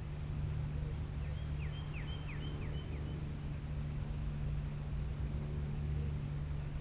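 A songbird sings a quick run of about five short notes, each falling in pitch, over a steady low hum.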